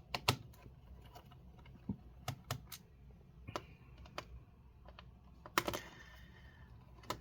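Scattered light clicks and taps of a screwdriver and small screws being handled on a laptop's bottom cover, irregularly spaced, with a louder clatter about five and a half seconds in.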